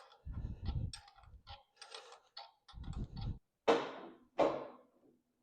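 Hand tools working the brake adjusting nut on a John Deere Spoker D: a string of small metallic clicks and knocks, then several sharper clanks, each fading quickly, under a second apart near the end.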